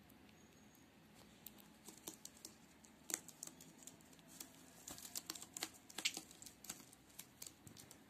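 Budgerigar pecking at crumbs on a tablecloth: quick, irregular sharp taps of its beak, sparse at first and thicker and louder in the second half.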